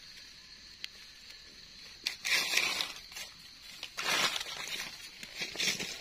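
Dry fallen leaves crunching and rustling in three short bursts, about two, four and five and a half seconds in.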